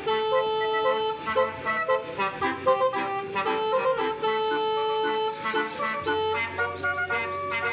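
Basuri telolet multi-tone horn on a truck playing a tune: several horn notes sound together and step from pitch to pitch in a quick, continuous melody.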